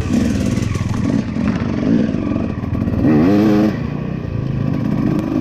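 Dirt bike engine running under throttle while riding, the revs rising and falling. A higher rev climbs about three seconds in and drops away again shortly after.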